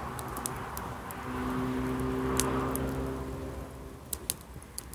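A motor vehicle's engine hum passing at a distance, a steady low drone that swells to a peak midway and fades away, with a few faint clicks.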